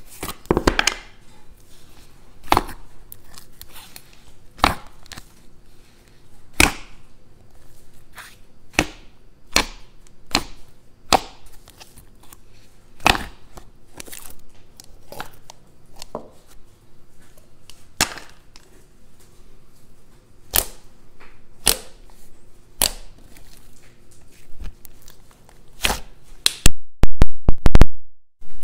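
Thick, glossy slime being opened, poked and pressed with the fingers, giving sharp wet pops and clicks every second or two. Near the end comes a quick run of very loud crackling pops as it is squished.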